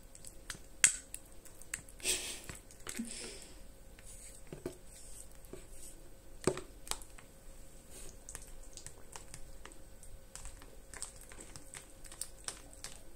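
Metal spoon stirring yogurt in a plastic cup: scattered light clicks and taps of the spoon against the cup, with a longer scraping sound about two seconds in.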